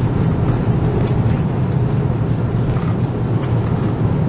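Airliner cabin noise: a steady low drone of engines and rushing air heard from a window seat.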